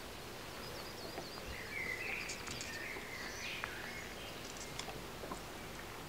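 Faint bird chirping in the background, strongest in the first half, with a few light taps and paper rustling as a page of the picture book is turned.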